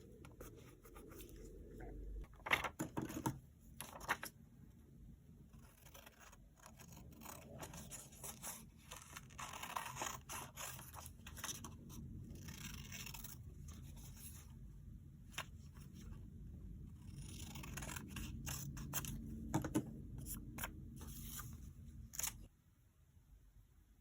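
Scissors snipping paper, with paper scraping and tearing, in many short irregular cuts. A low background hum cuts off near the end.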